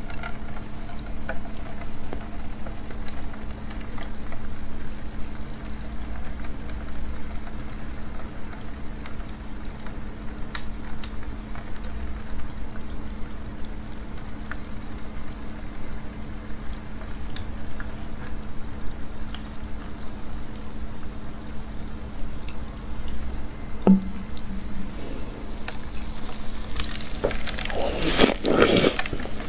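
Cola pouring from a bottle in a thin steady stream onto a mound of slush ice held in a hand and trickling into a tray below. In the last couple of seconds come loud wet crunching and slurping bites into the cola-soaked ice.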